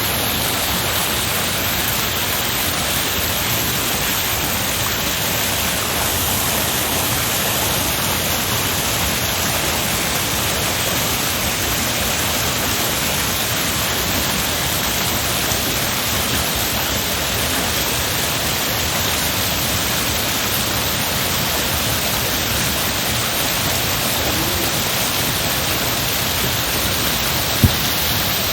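Steady, heavy rushing water, an even unbroken wash of sound. A single brief click about a second before the end.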